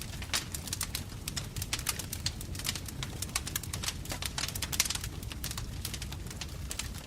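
Wood fire crackling, with many irregular sharp pops and snaps over a low steady rumble of the flames.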